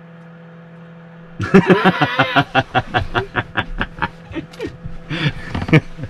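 Laughter and giggling bursting out about a second and a half in, then going on as rapid pulses of 'ha-ha' sounds.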